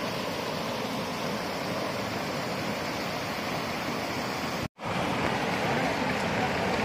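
Small waterfall cascading over stepped sandstone rock: a steady rushing hiss of falling and running water. The sound cuts out for an instant about two-thirds of the way through, then comes back slightly louder.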